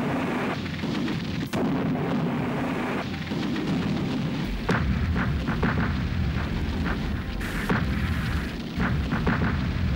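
Rumbling gunfire and explosions, a dense continuous din with sharper bangs breaking through, more of them in the second half.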